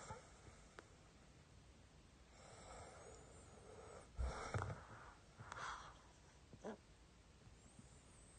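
A sleeping man snoring, faint: a long, drawn-in breath from about two seconds in, a short snort a little after four seconds, then a couple of shorter, softer breaths.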